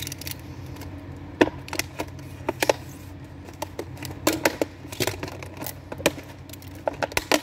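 A stiff clear-plastic clamshell pack being opened by hand: an irregular run of sharp plastic cracks and clicks. A steady low hum runs underneath.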